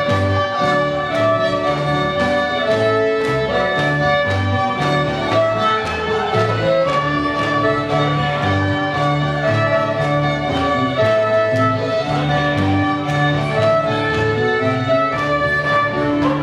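Fiddle-led reel music for a country dance, with a steady beat throughout.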